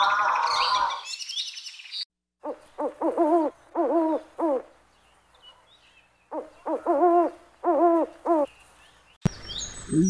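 Great grey owl calling: two bouts of about five short, arching hoots each, with a pause between the bouts. In the first second, the tail of a louder call from another animal fades out along with some high bird chirps.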